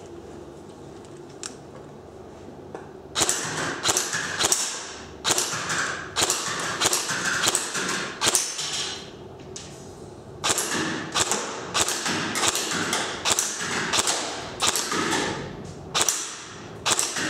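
Custom KWA ERG electric airsoft rifle firing a string of single shots, about one to two a second, each a sharp crack with a short fading tail. The shots begin about three seconds in and stop briefly about two-thirds of the way through before resuming.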